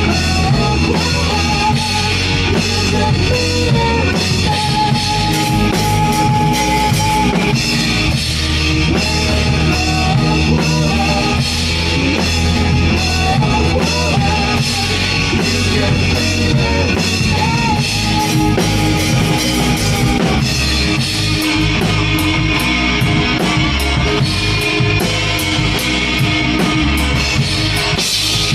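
Live rock band playing, with a drum kit keeping a steady beat on bass drum and cymbals under electric guitar and bass. A lead line holds and bends its notes through the first part, and cymbal hits grow busier near the end.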